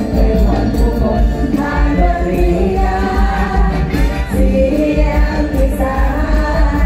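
Live mor lam band music, Isan Thai folk-pop, with female singers singing together into microphones over a heavy, steady bass.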